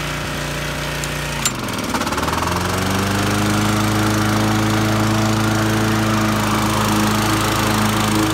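Honda HR214 lawnmower's single-cylinder engine running. About a second and a half in there is a sharp click and the engine note dips, then climbs over about a second and settles into a steady, louder run.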